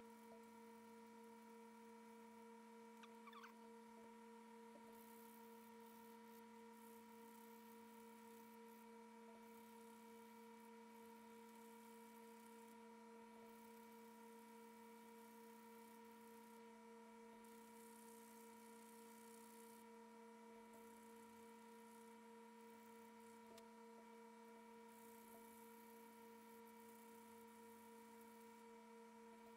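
Near silence: only a faint, steady hum of a few constant tones, with a brief faint sound about three seconds in.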